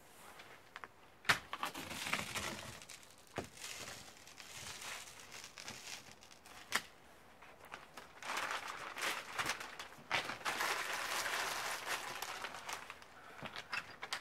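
Plastic packaging crinkling and rustling in several bursts as it is handled, with a few sharp clicks between them.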